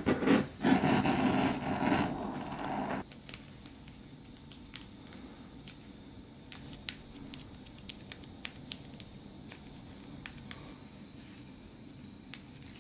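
Handheld butane torch on a gas canister hissing as its flame warms pulled sugar, cutting off suddenly about three seconds in. Afterwards only faint scattered ticks of gloved hands pressing the sugar pieces together.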